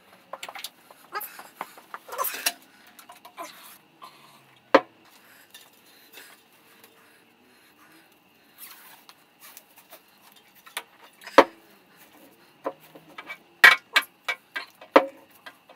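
Scattered sharp metallic clinks and knocks of hand tools and metal parts being handled on a motorcycle, irregular, with a few louder knocks and quiet gaps between.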